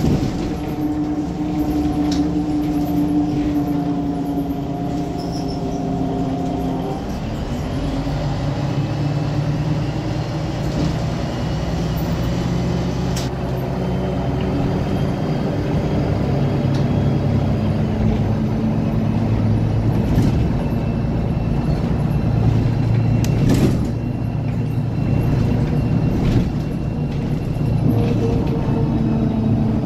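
A city bus's engine running while the bus drives along, with a steady low rumble. Its note drops about a quarter of the way in and then climbs slowly again. A few sharp knocks come from the bus body.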